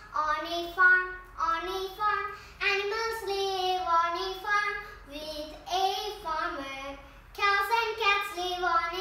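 A young girl singing a nursery rhyme about farm animals, her voice alone with no backing music.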